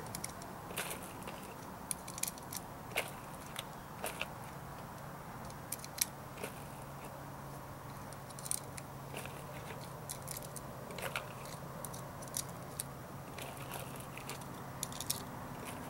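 Small .22 LR cartridges being pressed one at a time into the magazine of a SIG Sauer Mosquito pistol: sharp, irregular little clicks about a second apart.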